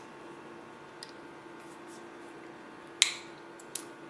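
Faint steady hum with a few light ticks and one sharp click about three seconds in.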